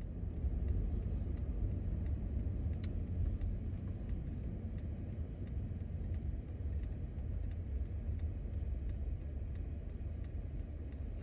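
Steady low rumble with faint, scattered clicks.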